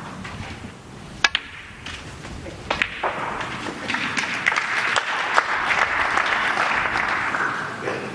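A snooker cue strikes the ball with a sharp click about a second in, and another click of ball on ball follows. Then the audience applauds for several seconds after the black is potted.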